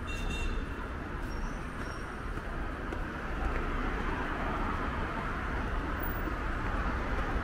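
Steady city street traffic noise: cars running along the road with a low rumble, getting a little fuller about halfway through. A few brief high tones sound near the start.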